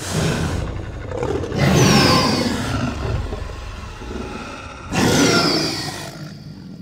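Tyrannosaurus rex roar sound effect: a roar that starts suddenly, swells again about one and a half seconds in and once more about five seconds in, then fades away.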